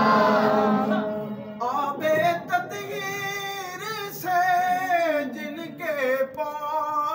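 Unaccompanied devotional recitation of Durood-o-Salam: many voices singing together fade out about a second in. A single lead voice then carries on alone, with long held notes that slide up and down in pitch between short breaths.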